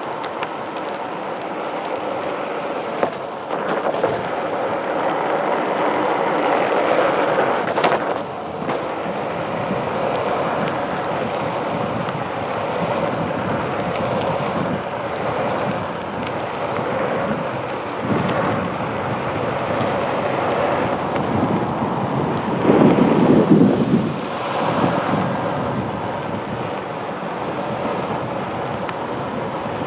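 Onewheel Pint electric board rolling over pavement: a steady rumble of its single tyre on the road, with wind buffeting the microphone. There is a sharp knock about eight seconds in and a louder, deeper rumble lasting about a second and a half about two-thirds of the way through.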